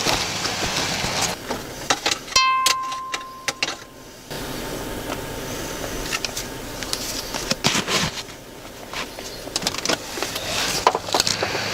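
Rustling and scattered clicks of movement and handling close to the microphone. A steady electronic beep sounds about two and a half seconds in and lasts about two seconds.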